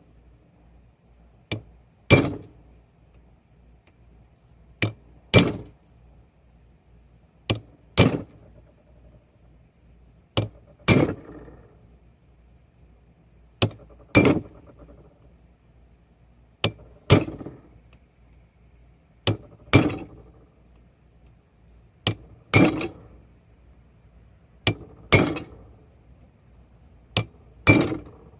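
Hand hammer striking a steel tool held against a hot railroad spike on an anvil, forging the mouth of a skull. The blows come in pairs, a light tap then a heavier ringing blow, every two and a half to three seconds, with a pause between pairs while he lines up the next strike.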